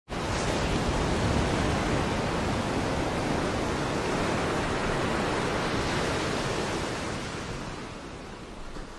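Ocean surf making a steady, even rush of breaking waves, fading out over the last two seconds or so.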